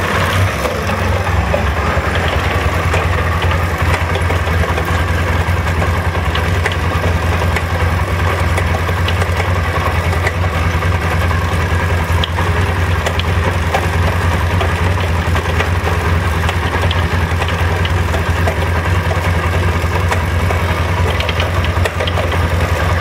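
SMC 250's engine idling steadily with a light clattering rattle over the hum, which the owner puts down to the chain rattling.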